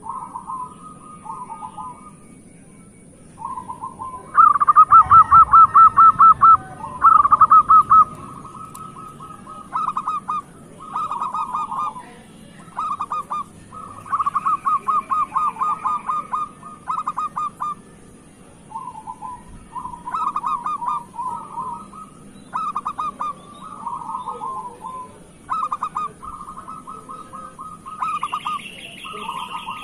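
Zebra dove (perkutut) cooing: repeated phrases of quick staccato notes, each phrase a second or two long with short pauses between, the loudest phrases about four to eight seconds in. Fainter, higher chirping joins near the end.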